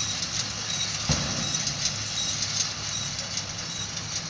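Tractor-drawn hay baler running under a steady engine hum, with a fast light clatter from the baling mechanism and a single knock about a second in.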